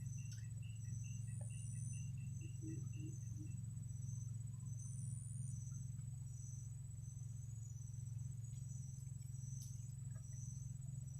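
Insects chirping in the evening: one steady high-pitched trill with rows of short repeated chirps, a lower chirping series stopping a few seconds in, over a steady low rumble.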